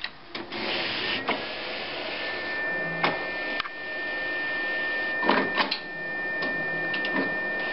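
HP DesignJet 450C inkjet plotter loading an A4 sheet: its paper-feed mechanism whirs with a steady high whine, broken by several sharp mechanical clicks.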